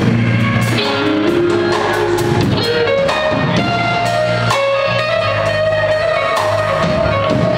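A rock band playing live: an amplified electric guitar plays held notes over a drum kit keeping time with regular drum and cymbal hits.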